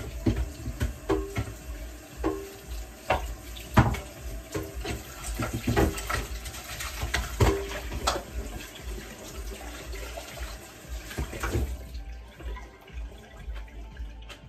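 Tap water running into a kitchen sink during dishwashing, with scattered clinks and knocks of dishes; the water stops about twelve seconds in.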